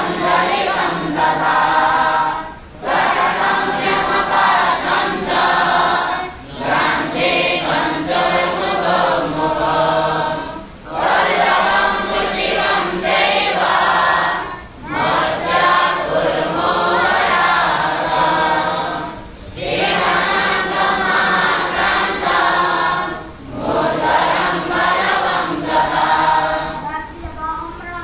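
A group of young boys chanting Vedic mantras in unison, in long phrases broken by brief pauses for breath about every four seconds. The chanting tapers off near the end.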